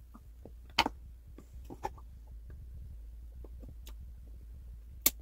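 Scattered small clicks and taps of makeup items being handled and set down, loudest about a second in and again near the end.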